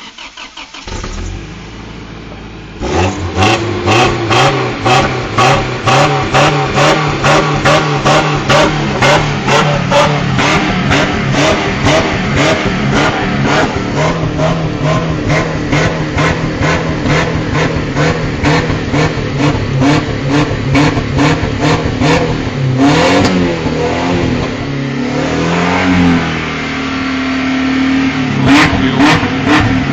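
Pickup truck engine revved hard and repeatedly in quick blips, about two a second, after a few seconds of quieter running. About three-quarters of the way through it settles briefly into steadier, lower running, then the rapid revving picks up again near the end.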